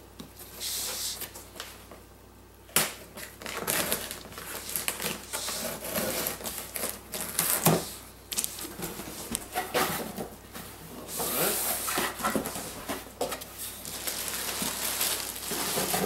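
A cardboard shipping box being opened: a knife scraping and slitting the packing tape, the flaps being pulled open with sharp clicks and scrapes, then crumpled kraft-paper packing rustling as it is pulled out near the end.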